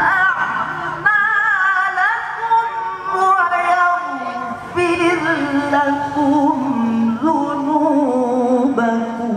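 A male Quran reciter (qari) singing a verse in the melodic tilawah style into a microphone. It is one long, heavily ornamented line with wavering, gliding melismas and a few short breaks between phrases, moving lower in pitch in the second half.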